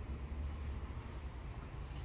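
Steady low hum with a faint even hiss: background bench and room noise.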